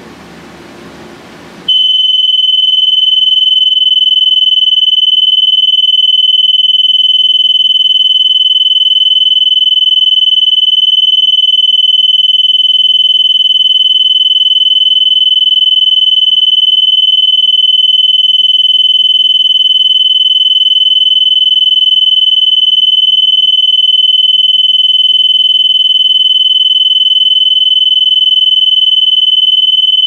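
Gentex 710CS photoelectric smoke alarm sounding on test. It switches on suddenly about two seconds in and holds one loud, steady, high-pitched tone without a break.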